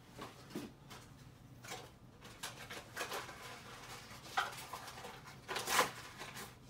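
Small handling noises of packaging and batteries being picked up: scattered light clicks and rustles, the loudest a brief rustle near the end.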